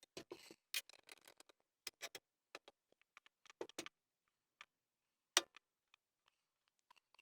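Scattered knocks and clicks of wooden parts and hand tools being handled during woodwork, at an uneven pace, the loudest a single sharp knock a little past the middle.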